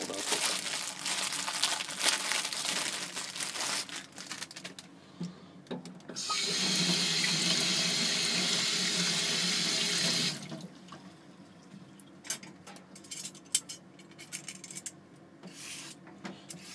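Kitchen tap running into a stainless-steel sink in a steady rush for about four seconds, starting about six seconds in, as a carrot is rinsed under it. Before it there are a few seconds of crinkling and clatter, and after it a few light knocks.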